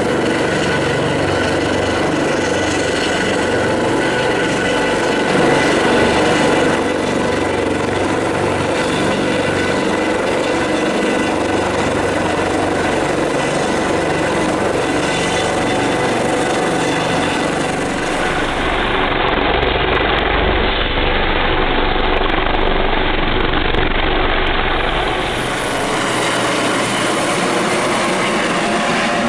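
Airbus AS365 N3+ Dauphin rescue helicopter hovering close by: a loud, steady rotor and turbine drone with a whine running through it. For several seconds after the middle, the sound turns duller and deeper, with a heavier low rumble.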